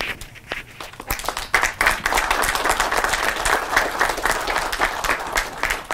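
Audience applauding: a few scattered claps at first, filling out into steady applause about a second in, then dying away near the end.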